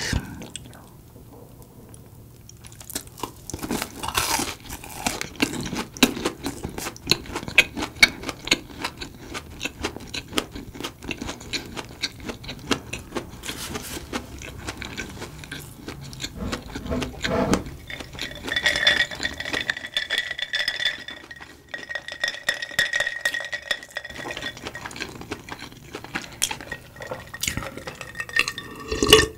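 Close-miked chewing of a crisp fried snack: a dense run of small crunches and wet mouth clicks. Near the end, a glass is raised for a drink.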